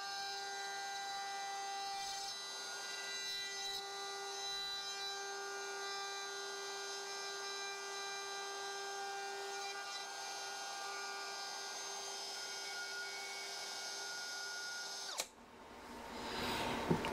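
DeWALT DCW600 cordless compact router in a DNP612 plunge base, running at a steady high whine while it routes letters into wood. It cuts off abruptly near the end, and a brief rush of noise follows.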